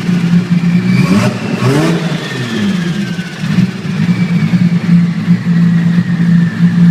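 Turbocharged car engine running, with a high turbo whistle slowly falling in pitch. About a second in the engine is blipped up and let back down, with short bursts of rushing air as the throttle closes, the turbo's pressure being released.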